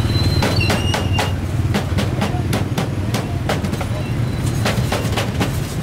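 Cleaver chopping grilled buffalo meat on a round wooden chopping board: runs of sharp knocks, several a second, with a short pause about four seconds in. A steady low rumble runs underneath.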